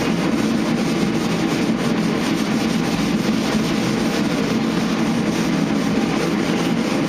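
Dual-action sander running steadily with 220-grit paper over a primed truck panel, lightly sanding to knock the orange peel out of the primer.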